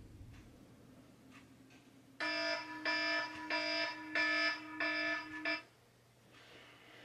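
Electronic wake-up alarm ringing: a buzzy repeated tone pulsing about one and a half times a second, starting about two seconds in and cut off after about three and a half seconds.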